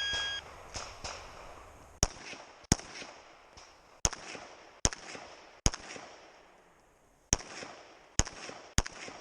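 Electronic shot-timer start beep, then about two seconds later a string of about eight gunshots from a competition firearm, fired in uneven pairs and singles, each with a short echo.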